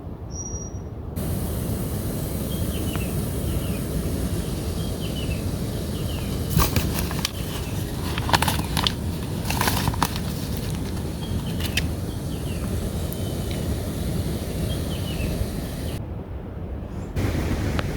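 Wind buffeting the microphone outdoors, with a small bird chirping short falling notes again and again and a few sharp clicks and knocks between about six and ten seconds in.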